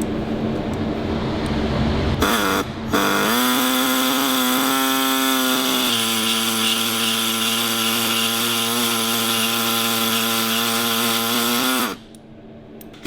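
Power saw cutting through a motorcycle fork brace: the motor stops briefly, spins up again a few seconds in, runs at a steady pitch, then winds down and stops near the end.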